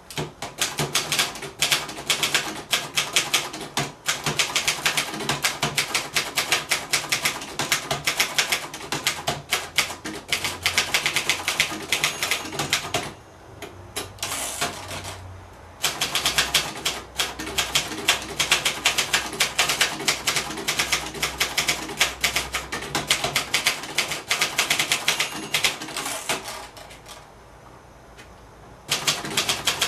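1965 Singer Scholastic Model T4 manual portable typewriter, a rebranded Royal Lark, being typed on: a rapid run of typebar keystrikes, with a break about thirteen seconds in and another near the end before typing resumes.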